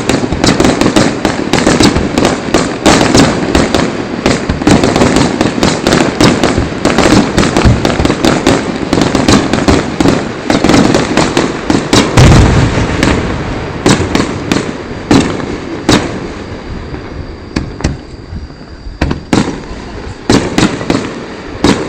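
Aerial fireworks going off in a dense run of rapid bangs and pops, with one heavier, deep boom about halfway through. In the last several seconds the bursts thin out and grow quieter.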